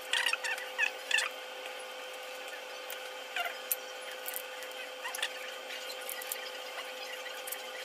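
Mouth sounds of eating shellfish by hand: short squeaky sucking and smacking as fingers are licked clean, several in the first second or so and a couple more later, over a steady hum.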